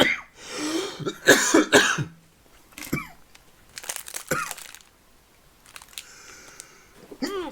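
A man coughing and hiccuping in several short, separate fits, brought on by eating hot chili.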